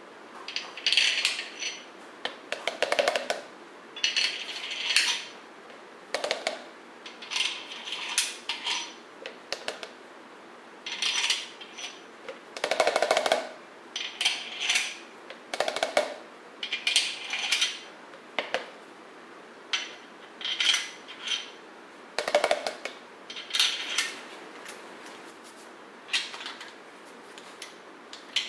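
Socket ratchet and torque wrench clicking in short bursts, about every one to two seconds, as the main bearing cap bolts of a 440 Mopar big-block are run down and torqued in steps to 85 foot-pounds. Now and then a duller knock of socket on bolt sounds among the clicks.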